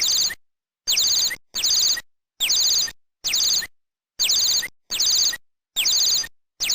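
A small bird chirping in short, identical bursts. Each burst is a quick run of about five high chirps, repeated roughly every three-quarters of a second with complete silence between, like a looped sound-effect sample.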